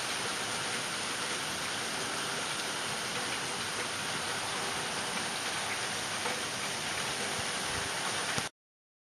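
Steady hiss of heavy rain during a thunderstorm, cutting off abruptly about eight and a half seconds in.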